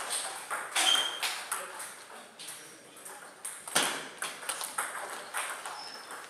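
Table tennis rally: the ball clicking off the rackets and bouncing on the table in a run of sharp, irregularly spaced clicks, with the loudest hits about a second in and near the middle.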